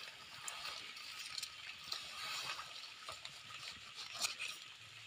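Dry leaf litter and grass rustling and crackling as hands reach in and grasp a mushroom to pick it, with scattered small crackles and a sharper snap about four seconds in.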